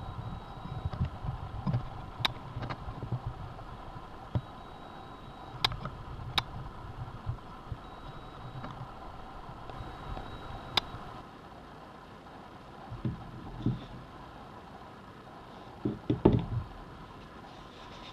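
A sewing machine being handled and set up: scattered sharp clicks and clusters of low knocks over a faint steady hum.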